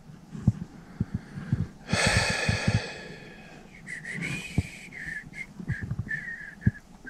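Short low knocks and taps of hands handling a frog lure and fishing line over a plastic tackle box in a small boat, with a loud hissing rush about two seconds in that lasts about a second. From about four seconds in, short high chirping notes repeat: a bird calling.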